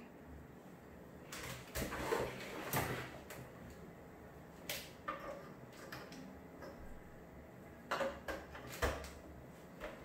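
Faint handling noise: a few soft knocks and clicks with rustling between, as hands fit a DVI-to-HDMI adapter and cable into the back of a monitor.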